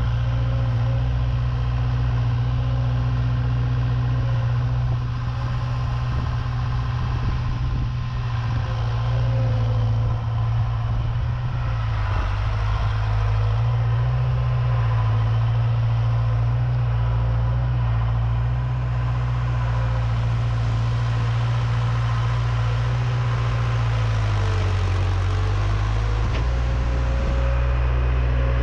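Diesel engine of a John Deere 270 skid steer on Loegering VTS tracks running steadily while it spreads asphalt millings. The low engine note wavers a little and dips briefly before picking back up near the end.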